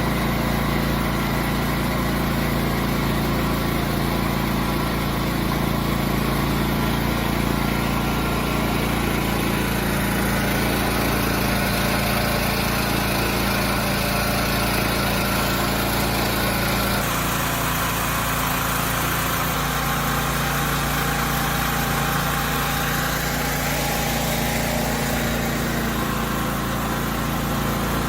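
Champion 8750-watt open-frame inverter generator's gasoline engine running steadily just after an electric start. Its note shifts slightly a little past halfway.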